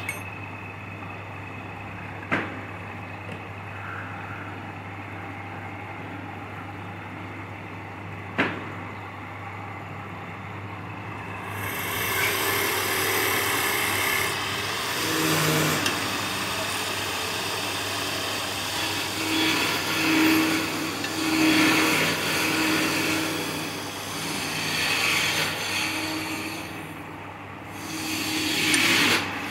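Wood lathe running with a steady hum, with two sharp clicks early. From about twelve seconds in, a turning tool cuts the spinning wood in uneven surges.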